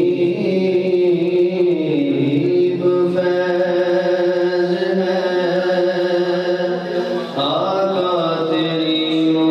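A man singing a nasheed into a microphone in long, drawn-out notes that bend slowly in pitch, over a steady low drone. He breaks off briefly about seven seconds in, then starts a new phrase.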